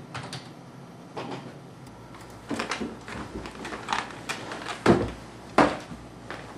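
Clicks and knocks from a person at a desk: light clicks of typing on a computer keyboard, then handling knocks, with two louder knocks about five seconds in.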